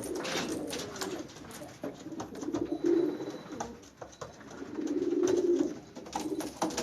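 Domestic pigeons cooing in low, drawn-out phrases, about three bouts, with scattered short clicks and taps among them.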